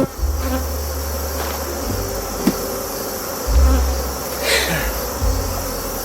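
A honeybee colony buzzing steadily around an open hive, with low rumbling bumps underneath that come and go.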